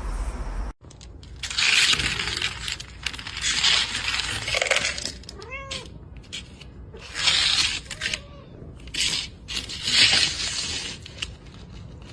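Domestic cat meowing: two or three short calls about midway, between several loud bursts of hissing noise.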